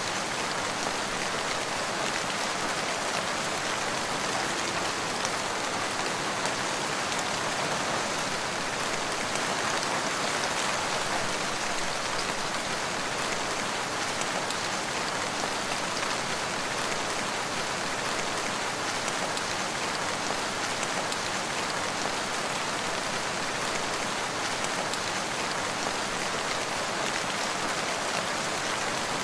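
Steady rain falling, an even wash of many drops with no sudden sounds.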